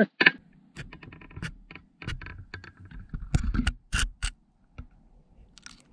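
Irregular scrapes, clicks and knocks of a camera and light being worked around inside a hollow sycamore trunk, rubbing and bumping against the bark, busiest between about two and four and a half seconds in.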